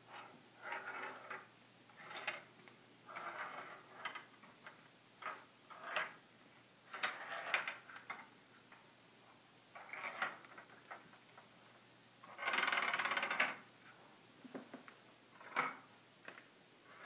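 The ball of a Perplexus Epic maze rolls and clicks along the plastic tracks inside the clear sphere as it is tilted by hand. It makes a series of short rolls and taps, with one longer, denser rattle about twelve seconds in.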